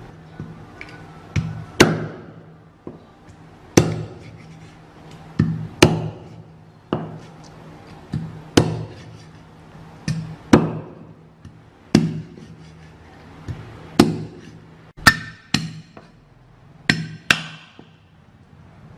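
Heavy knife or cleaver chopping down onto a wooden cutting board. There are about seventeen hard chops at an uneven pace, often in quick pairs, and each strike rings briefly.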